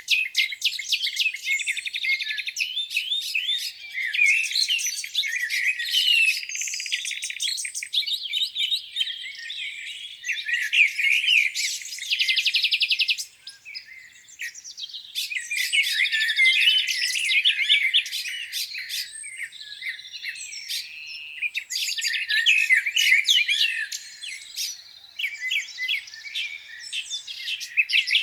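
Several songbirds singing at once in a spring-morning chorus, overlapping chirps and rapid trills, with a brief lull about halfway through.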